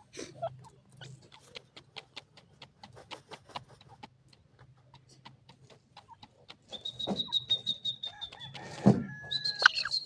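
Grey francolins dust-bathing in loose dry sand, with soft, irregular scratching and flicking clicks. About seven seconds in, a high, steady whistling bird call with a rapid pulse begins, breaks off briefly and starts again near the end, and it is the loudest sound.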